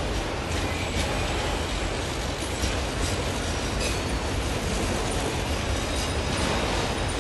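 Autorack freight cars rolling past: a steady rumble of steel wheels on rail, with a few brief high wheel squeals.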